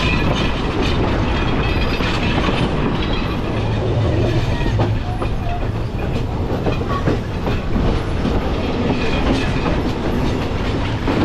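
Passenger train running along the track, heard from on board: a steady rumble of wheels on rails with an irregular clickety-clack.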